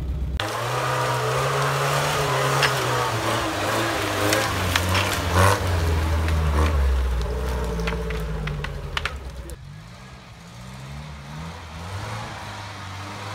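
UAZ-469 off-roader's engine revving and labouring as it drives past close by through forest undergrowth, with sharp cracks and knocks from snapping branches and debris under its tyres. About ten seconds in it drops away, the engine fainter as the vehicle pulls off into the distance.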